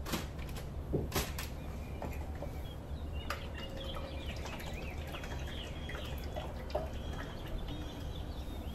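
Oiled potatoes knocking softly as they are set into a foil-lined roaster, then avocado oil drizzled from a bottle over them. A low steady hum runs underneath.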